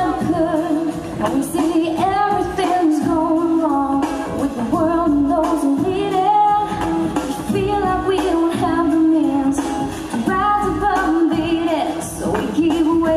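A woman singing a song into a microphone, her voice amplified.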